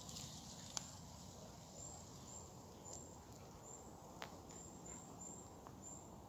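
Near silence: faint outdoor background, with two faint sharp clicks, one about a second in and another about four seconds in.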